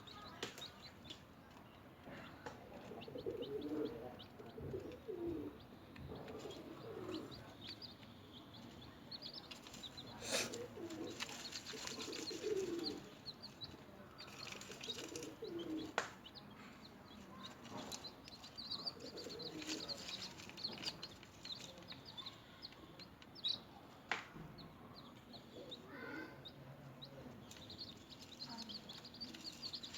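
Newly hatched chicks peeping in many short high chirps, mixed with lower, softer calls and a few sharp taps.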